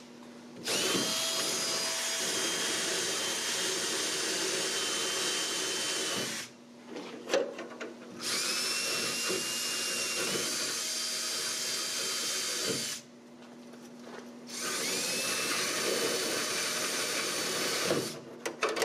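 Cordless drill spinning a wire wheel brush against the rusty steel latch edge of a pickup tailgate, scrubbing the rust off. It runs in three spells of several seconds each. Each spell starts with a rising whine as the drill spins up, then holds steady, with a few light knocks in the pauses.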